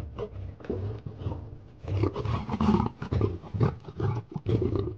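A lion and lioness snarling at each other in a run of short, harsh bursts, loudest from about two seconds in.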